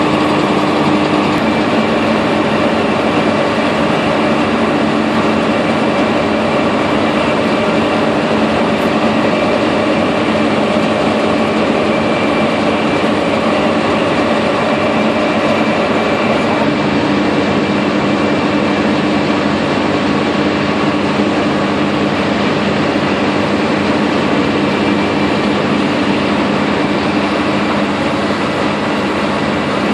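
ZJ50 oil-drilling rig machinery running: a loud, steady mechanical drone with several constant tones, unchanging throughout.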